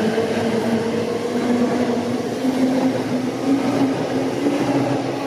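Regional multiple-unit passenger train moving off along the platform, its drive tone rising gently in pitch as it gathers speed over the rumble of the wheels. The sound begins to fade near the end as the last car passes.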